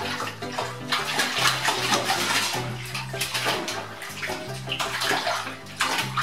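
Bathwater splashing and sloshing as a cat paddles and scrambles against the side of a filled bathtub, over background music.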